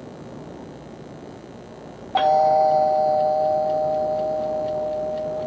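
A low rumble, then about two seconds in a loud bell-like ring of two close pitches that starts suddenly and slowly dies away, with faint quick ticking behind it.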